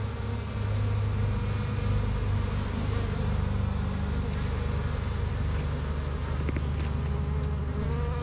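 Native Asian honeybees (Apis cerana) buzzing, a steady low drone, with a couple of faint ticks about two-thirds of the way through.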